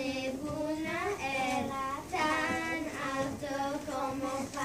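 A group of young children singing a song, with long held notes.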